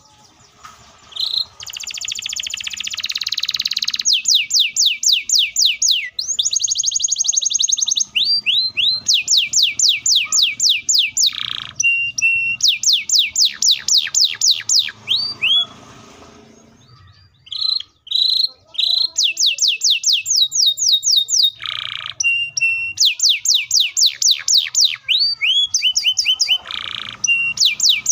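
Canary singing long, fast trilled rolls: rapid runs of falling whistled notes at about eight to ten a second, broken by a harsh buzzy note early on, short held notes and a brief pause about two-thirds through.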